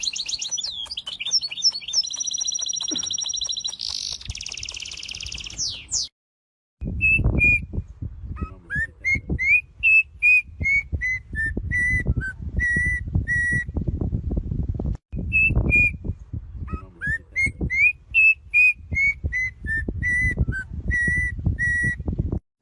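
Pet birds whistling and chirping. First comes a fast, high warbling twitter with rapid trills. After a short break, a clear whistled phrase of short notes rises and falls; it is heard twice, with low thumps and rumble underneath.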